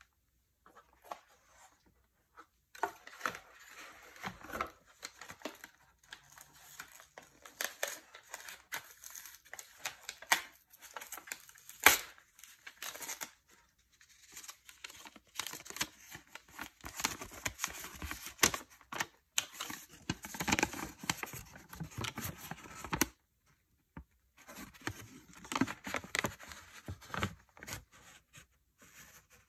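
Folded paper insert and cardboard packaging rustling and crinkling under gloved hands as the paper is handled and unfolded. There is a sharp snap about twelve seconds in and a short pause near the end.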